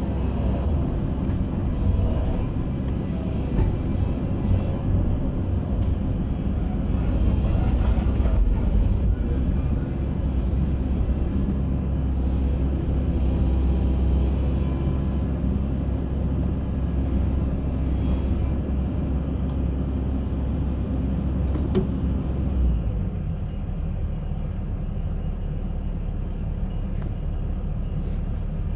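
A concrete mixer running: a steady, low engine rumble whose deepest part drops away about 22 seconds in.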